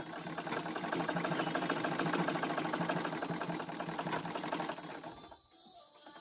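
Old black domestic sewing machine stitching at a fast, even rhythm for about five seconds, then stopping. It is running with only the bobbin in and no upper thread, so no stitches are being formed.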